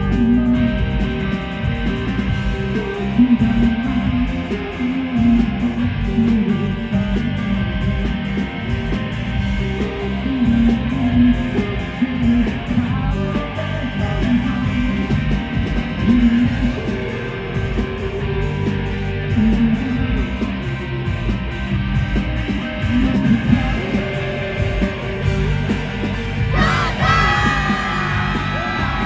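Rock band playing live: electric guitars ringing over bass and drums, with a singer's voice coming in near the end.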